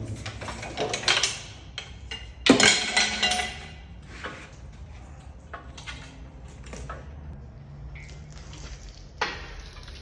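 Metal clanks and clinks of tools and engine parts being handled during an engine teardown: a scatter of irregular knocks, the loudest cluster about two and a half seconds in.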